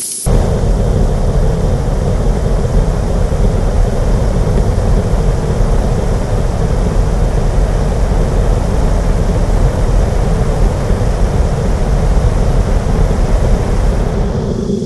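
Rocket engine firing: it ignites abruptly with a bright hiss, then holds a loud, steady rushing noise with a heavy deep rumble and a faint steady hum underneath. The level drops just before the end.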